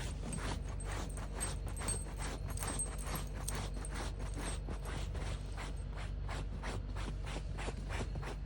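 Dachshund digging, scratching with its paws in a steady run of quick strokes, about four or five a second.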